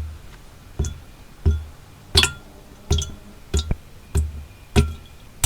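Background music: a plucked-string tune over a steady beat, with a sharp knock about every two-thirds of a second.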